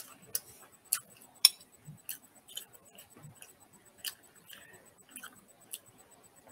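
Close-up eating sounds of someone chewing sticky palitaw, a glutinous rice cake: irregular sharp wet mouth clicks and smacks, about two a second, loudest about a second and a half in.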